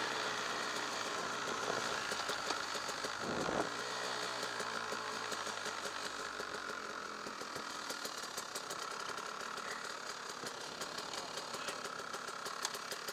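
Husaberg TE 300's single-cylinder two-stroke engine coming off throttle and idling with a light rattle as the bike rolls slowly. There is a short thump about three and a half seconds in.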